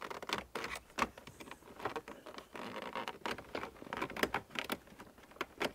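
Plastic trim removal tool and hands prying at the Lexus LX470's wood-grain center dash trim bezel: light, irregular clicks, creaks and scrapes of plastic as the panel's retaining clips are worked loose.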